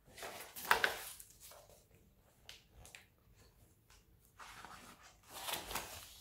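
Paper pages of a large picture book being turned: a loud rustle in the first second and another near the end, with faint page-handling sounds between.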